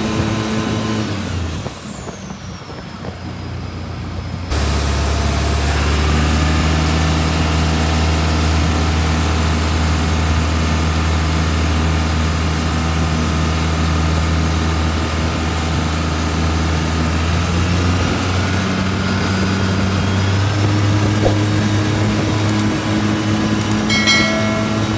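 Cummins QSB 6.7 550 hp turbo-diesel inboard driving a 9 m speedboat flat out, a deep steady engine note under a high whine, with hull and water rush. About a second and a half in, the engine note drops and the whine falls away. At about four and a half seconds full power comes back on sharply. Past the middle the whine climbs higher still.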